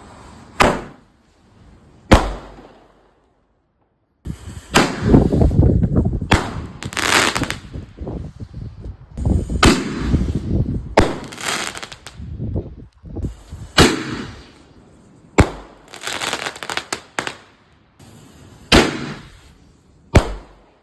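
TNT 'Sonic Boom' shot-tube firework going off in a series of loud bangs. Two single bangs open it, then a dense, crackling run of shots, then single shots a second or two apart until the last one near the end.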